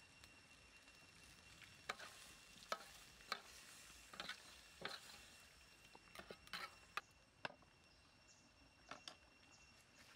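Metal ladle scraping and clinking against a black steel wok while a stir-fry is stirred: about a dozen short, irregular scrapes starting about two seconds in and dying away near the end, over a faint sizzle.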